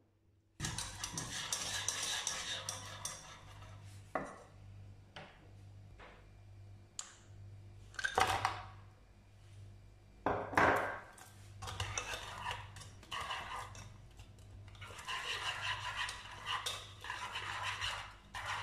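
Wire whisk stirring and scraping around a saucepan of milk and cornstarch cream, in stretches of rapid whisking with a few sharp knocks of metal against the pan in between.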